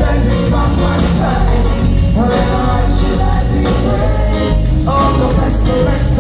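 A live band playing on stage, with electric guitars, keyboards, drums and a strong bass under lead and backing vocals, recorded loud from within the audience.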